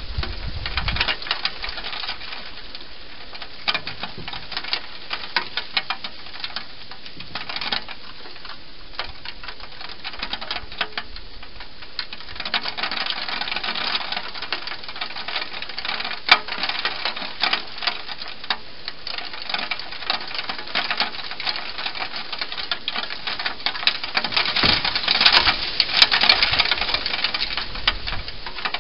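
Wild hedgehog eating from a dish inside a plastic feeding-station box: a dense run of rapid crunching and smacking clicks, loudest a few seconds before the end.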